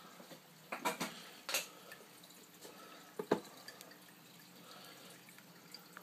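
Water dripping and trickling back into a coffee-maker carafe converted into a saltwater nano aquarium, as the circulation pump returns it through the coffee maker. A few louder drips come about one, one and a half, and three seconds in, over a faint steady hum.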